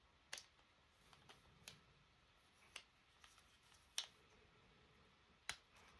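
A few faint, scattered clicks and taps of hard plastic RC-car gearbox parts being handled and pressed together, about five in all, the loudest about four seconds in.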